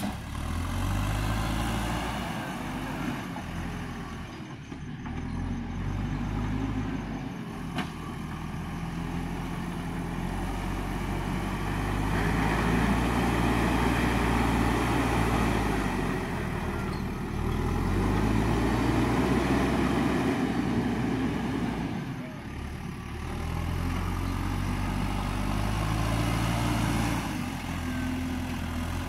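JCB backhoe loader's diesel engine working its loader bucket, revving up under load for several seconds at a time and dropping back between. There is a sharp knock about eight seconds in.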